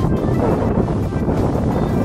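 Wind buffeting the microphone in a steady low rumble, with background music underneath.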